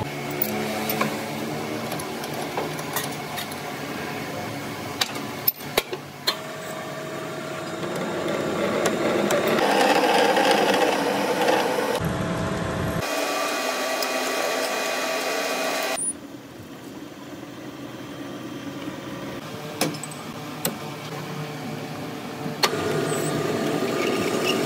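Metal lathe running and cutting into the end of a splined pinion shaft held in its chuck, a steady machine whine with a few sharp metallic clicks. The sound changes abruptly several times.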